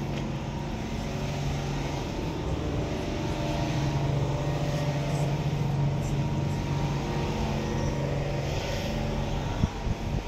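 Heavy trucks' engines idling in a standstill traffic queue, a steady low hum, with one short knock near the end.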